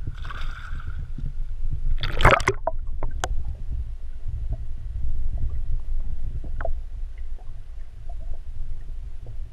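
A splash about two seconds in as the camera plunges under the lake surface, then muffled underwater sound: a steady low rumble with a few faint clicks.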